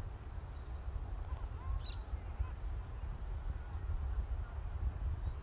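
Open-air ambience: an uneven low rumble with a few faint bird chirps and whistles over it.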